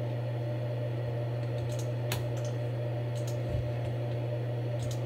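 A few scattered computer mouse clicks over a steady low hum.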